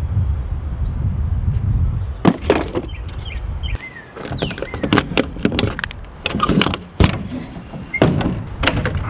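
A run of sharp metallic knocks and clanks, about a dozen spread over the last seven seconds, from tools and wheel parts being handled during a zero-turn mower tire swap. A low rumble runs under the first two seconds.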